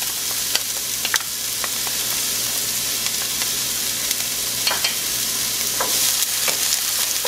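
Finely chopped onion sizzling in hot olive oil in a frying pan as it starts to sweat, stirred with a wooden spoon that taps the pan a few times. The sizzle swells about six seconds in as the onions are pushed around.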